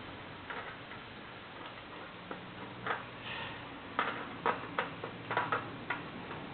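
Irregular sharp clicks and taps of a screwdriver and small screws on the plastic parts of a blade humidifier, as the four screws holding its water-spinning fin are undone; the clicks come more often in the second half.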